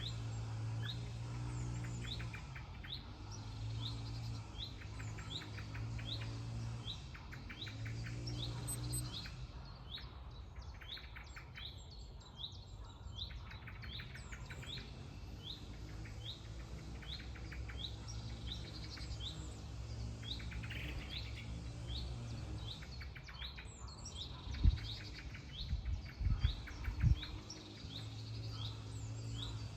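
Songbirds chirping outdoors: a short, high, rising chirp repeats about once or twice a second throughout, with bursts of quick trills lower down, over a steady low hum. Near the end a few sharp knocks stand out as the loudest sounds.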